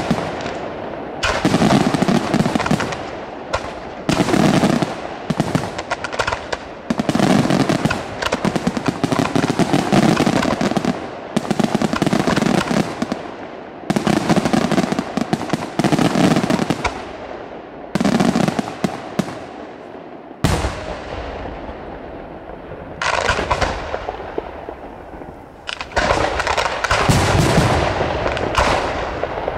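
Fireworks display: aerial shells and comets launching and bursting in rapid salvoes, a dense barrage of bangs and crackle. It thins out for several seconds about two-thirds through, then builds again near the end.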